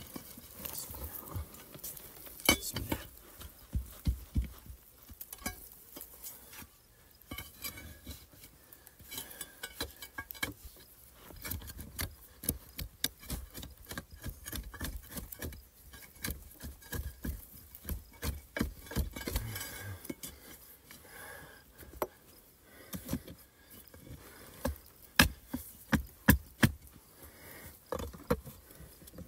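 Hand digging at a rock hollow: irregular knocks, clinks and scrapes of stone on stone and gritty soil as loose stones are struck and pried out. A few louder sharp knocks come near the end.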